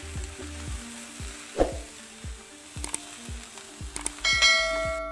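Chicken-and-vegetable filling sizzling in a non-stick wok as it is stirred, with the spatula knocking against the pan about a second and a half in. Background music with a steady beat plays under it, and a bright chime rings out near the end.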